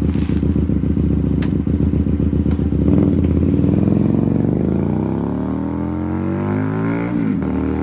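Naza Blade V-twin motorcycle riding past. The engine note is steady and grows to its loudest about three seconds in, then falls steadily in pitch as the bike goes by and draws away.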